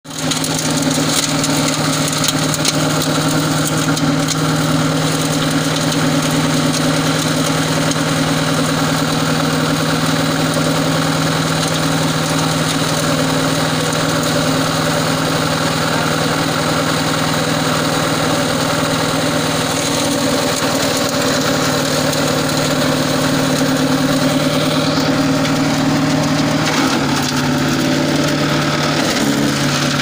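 A Rico RI6060 wood chipper's 6.5 hp engine runs steadily while small branches are fed into its hopper. Its note shifts slightly about twenty seconds in and again near the end.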